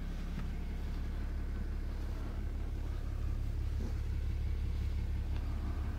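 Pickup truck's engine idling, a steady low rumble heard from inside the cab.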